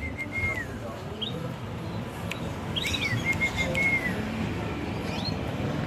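Zebra dove (perkutut bangkok) singing: an arched opening note followed by a quick run of short, even notes, heard twice about three seconds apart.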